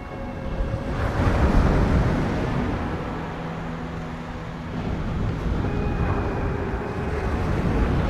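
Sea surf: waves breaking and washing ashore, one surge swelling about a second in and another building from about five seconds.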